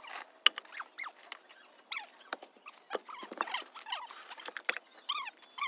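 Rapid high-pitched chirps and squeaks, short and gliding in pitch, with sharp knocks scattered among them as sawn log sections are handled.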